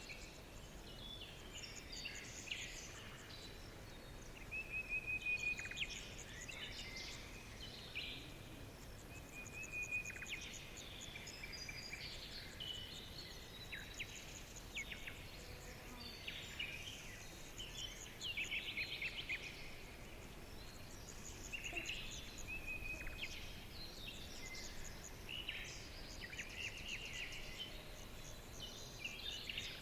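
Several wild birds singing together in a dense chorus of overlapping chirps and rapid trills, over a faint steady background hiss.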